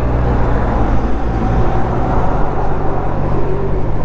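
A 500 cc motorcycle's engine running steadily at highway speed, with a rush of wind and road noise over it; the engine note shifts slightly about a second in.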